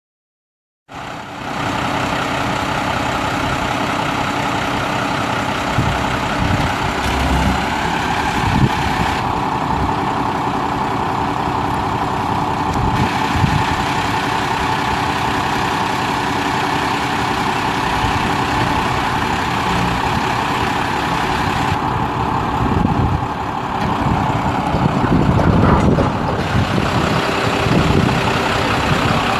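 Cummins ISB 5.9-litre inline-six diesel of a 1996 Freightliner FL70 truck idling steadily, starting about a second in, with a few brief knocks along the way.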